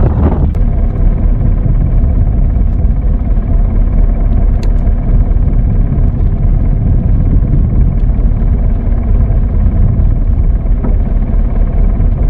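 A wooden fishing boat's engine running steadily, loud and low-pitched.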